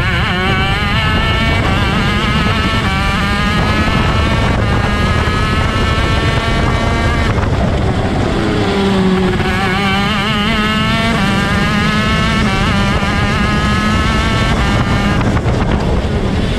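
Rok Shifter kart's 125cc two-stroke single-cylinder engine at racing speed, heard onboard. Its pitch climbs under acceleration, falls away about seven seconds in and again near fifteen seconds for corners, then climbs again.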